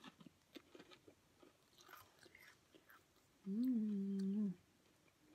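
Close-miked chewing and biting of fried chicken, with small wet mouth clicks. About three and a half seconds in, a closed-mouth hum, a one-second "mmm" from the eater, is the loudest sound.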